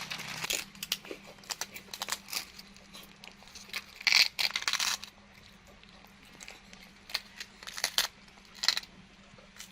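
Baby monkey biting and chewing crunchy puffed rice crackers: irregular sharp crunches, loudest in a burst about four seconds in, with a few more near the end.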